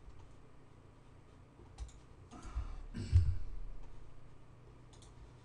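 A few scattered computer mouse clicks over a faint, steady low hum, with one louder knock with a low thump about three seconds in.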